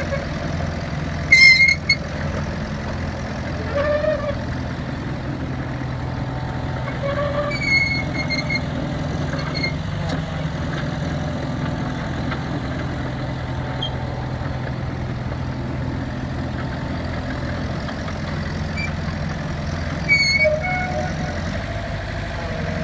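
Komatsu PC excavator's diesel engine running steadily, with three short, high-pitched squeaks over the top: one about a second in, one about eight seconds in and one near the end.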